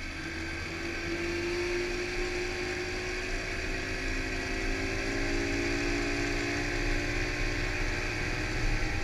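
Mercury OptiMax two-stroke outboard motor running steadily at cruising speed under a boat at speed, with the rush of water and the wake churning behind it.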